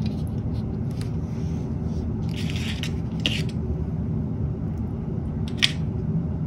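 Fingers twisting the thin wire leads of small electronic components together by hand: a few light clicks and a short rustle, the sharpest click near the end. Under them runs a steady low background rumble.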